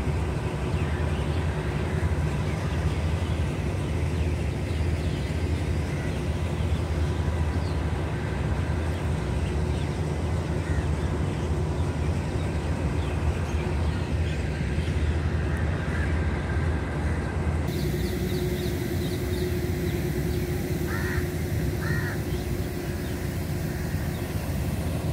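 Railway station ambience: a steady low rumble of an idling diesel locomotive, with crows cawing over it, including two short caws close together near the end.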